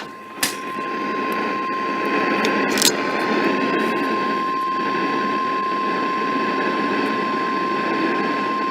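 NOAA Weather Radio warning alarm tone: a single steady high-pitched beep held for about eight and a half seconds over receiver static, with a couple of faint clicks in the first three seconds. It is the alert tone that signals a warning broadcast is about to follow, here a severe thunderstorm warning.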